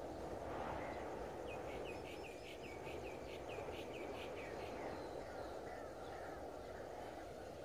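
Steady low city background noise with a bird calling over it: a rapid run of about a dozen short, falling chirps in the middle, then a few softer calls.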